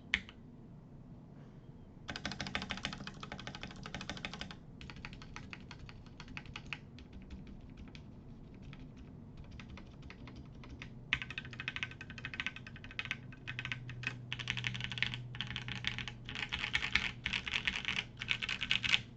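Typing on a mechanical keyboard with lubed linear Gateron Yellow switches in an FR4 plate: rapid key clacks in bursts with short pauses. The typing thins out in the middle and turns fast and dense over the last several seconds.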